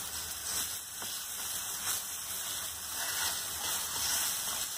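Semolina roasting in ghee with mashed banana, sizzling in a nonstick frying pan while a wooden spatula stirs it, with a few soft scraping strokes against the pan.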